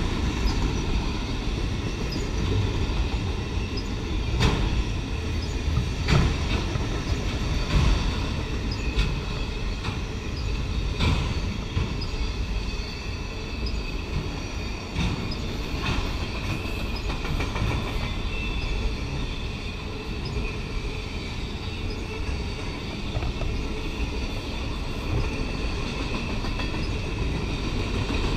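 Autorack freight cars of a CSX train rolling past close by: a steady low rumble of steel wheels on the rails, broken by scattered sharp clacks as the wheels cross rail joints.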